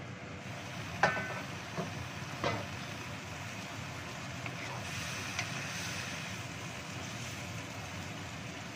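A stainless-steel wok lid is lifted off and set down with a ringing metallic clink about a second in, then two lighter knocks. Steamed green beans and carrots sizzle steadily in the open wok.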